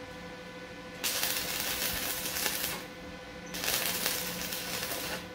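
Electric arc welding: two tack welds, each a spell of arc noise lasting just under two seconds, the first starting about a second in and the second a little past the middle.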